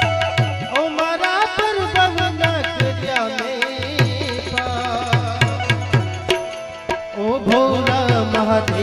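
Live Gujarati devotional bhajan: tabla beating a steady rhythm under harmonium, with the singer's voice gliding through a melodic line near the start and again near the end.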